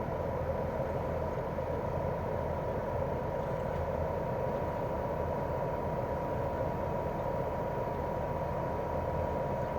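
Daikin R28RMV mini-split outdoor unit running steadily in cooling mode: its twin-cylinder swing inverter compressor and propeller fan give a low hum and a rush of air, with a thin steady whine on top.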